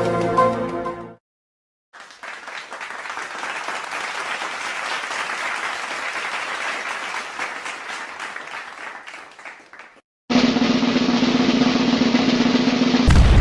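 A run of separate sound-effect clips: a music clip cuts off about a second in, then after a short silence about eight seconds of dense clapping like applause or a drum roll, fading out. A clip with a steady low hum follows, and a loud low boom like an explosion begins right at the end.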